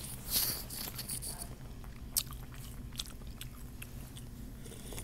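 Close-up eating sounds of a person chewing chicken noodle soup: a short hissy burst about half a second in, then quiet chewing with a few sharp mouth clicks.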